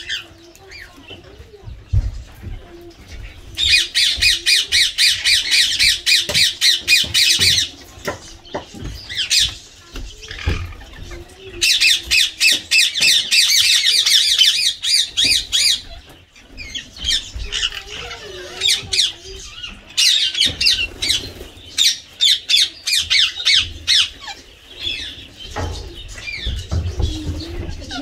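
Ringneck parakeets screeching in long runs of rapid, harsh, repeated calls, each run lasting several seconds, with short pauses between.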